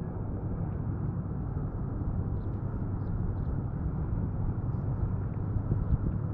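Wind buffeting the kayak-mounted camera's microphone, a steady low rumble, with a few faint ticks.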